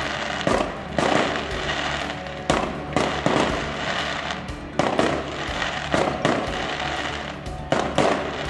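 Aerial firework shells bursting overhead: about a dozen sharp bangs, irregularly spaced, some coming in quick pairs, with a dense crackle from glittering stars filling the gaps. Music plays underneath.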